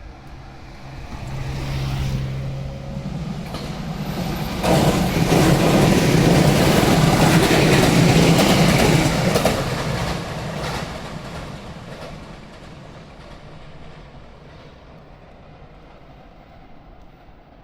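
A train passing close by. It builds over the first few seconds and is loudest for about five seconds with wheel clatter, then fades away slowly.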